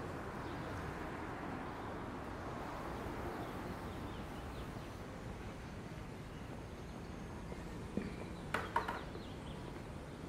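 City street ambience: a steady hum of distant traffic and general city noise, with a few sharp clicks or knocks close together about eight seconds in.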